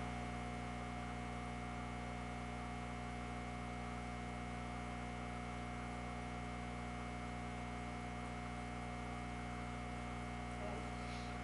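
Steady electrical mains hum, with a fainter high steady whine above it, unchanging throughout.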